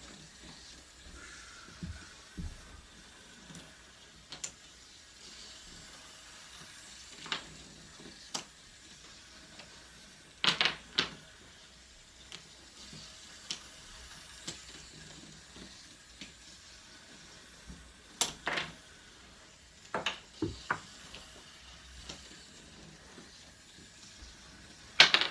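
Dominoes being set down and stacked by hand: scattered sharp clacks, about a dozen spread irregularly, with a loud pair about ten seconds in and the loudest one near the end.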